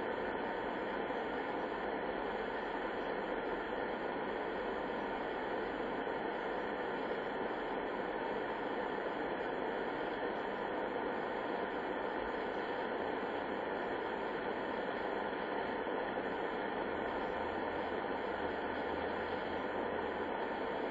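Steady shortwave hiss and static from a Grundig Satellit 750 receiver in upper-sideband mode, tuned to the 11175 kHz military HF channel with no transmission on it: only band noise, cut off above the narrow sideband passband.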